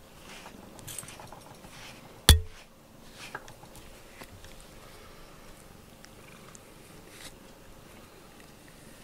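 A cat purring while it is brushed with a rubber grooming brush, with soft scratchy brush strokes repeating through it. A single sharp knock, the loudest sound, comes about two seconds in.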